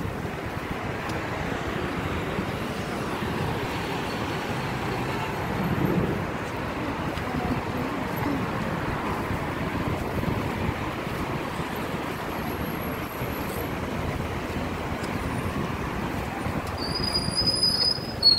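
Steady outdoor city noise of road traffic passing on a street, with a brief high-pitched squeal near the end.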